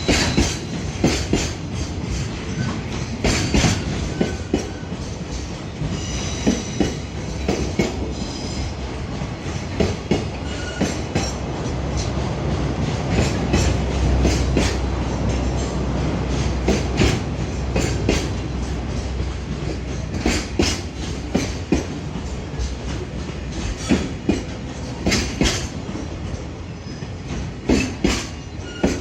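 JR Freight container train's wagons rolling past, wheels clacking over rail joints in uneven clusters of knocks over a steady rumble. Faint high wheel squeals come and go, and the low rumble swells about halfway through.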